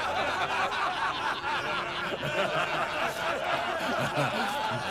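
A crowd of soldiers laughing, many men's voices chuckling and snickering over one another.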